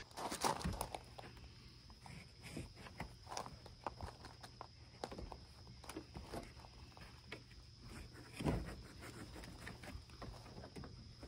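Faint handling noises: scattered light clicks, knocks and rustles of hands working a car's plastic interior trim and headliner board loose, with a louder knock about eight and a half seconds in.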